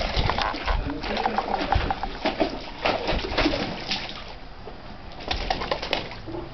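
Water splashing and a plastic bucket knocking as a Newfoundland dog plays in it, in a run of quick irregular splashes and knocks that eases off after about four seconds and briefly picks up again near the end.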